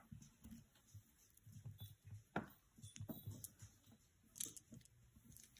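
Faint handling of a beaded necklace on a cloth: a few soft clicks of the beads, the clearest about halfway through and again near the end, otherwise near silence.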